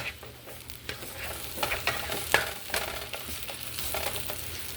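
Veggie omelet sizzling in butter in a frying pan just after being flipped, with a few short scrapes and taps of a spatula against the pan.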